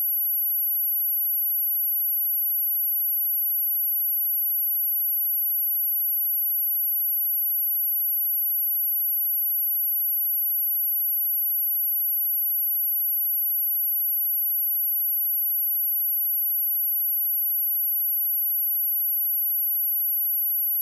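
Steady, unbroken 11712 Hz sine-wave test tone: a single high-pitched whistle at constant pitch and level.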